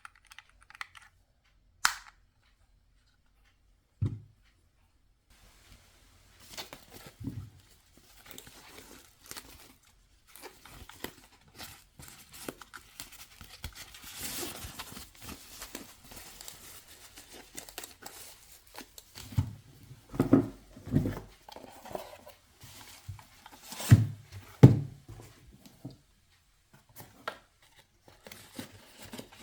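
Product packaging being opened by hand: wrap tearing and crinkling, with a few sharp clicks at first and several dull knocks as the box and its contents are handled, the loudest knocks about two-thirds of the way through.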